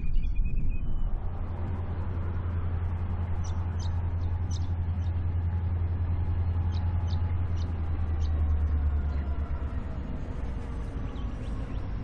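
ARG Q class diesel-electric locomotive, with a second unit behind, hauling a freight train under power towards the listener. It gives a steady low engine drone that comes in about a second in and stays even, with fainter whining tones above it that sag slowly in pitch.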